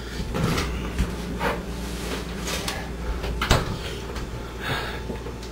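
Several scattered knocks and clunks of household handling, like a cupboard door or a cup being set down, over a steady low hum; the sharpest knock comes about three and a half seconds in.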